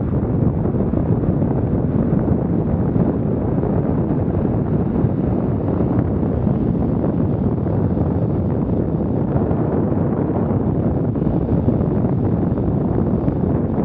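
Steady wind rushing over a bicycle-mounted action camera's microphone while riding at about 35 km/h, with low road rumble beneath.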